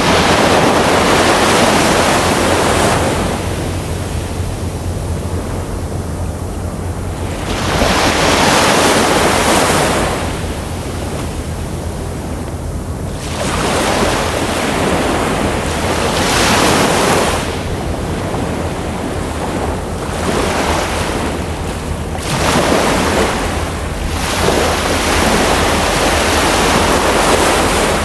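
Ocean surf: waves breaking and washing in, swelling into a loud rush every five to six seconds and falling back between, over a steady low rumble.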